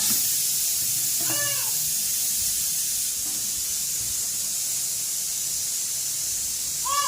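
Pressure cooker whistle: a loud, steady hiss of venting steam that starts suddenly. A small child gives a short whimpering cry about a second in and again near the end.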